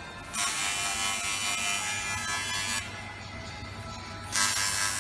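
Automatic air-damper welding machine at work: its welding arc hisses and buzzes in two bursts, one of about two and a half seconds just after the start and another beginning near the end, over a steady low hum.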